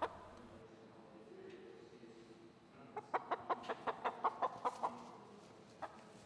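Brown hens clucking: a quick run of about a dozen short clucks, some six a second, from about three seconds in, and one more cluck near the end.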